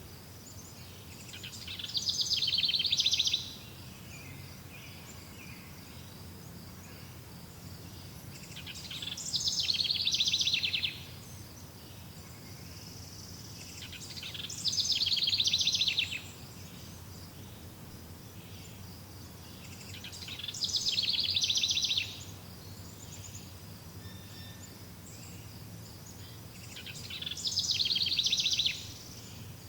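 A songbird singing a rapid high trill, five times about every six seconds. Each phrase builds up over about two seconds and then cuts off sharply, over a steady faint outdoor background.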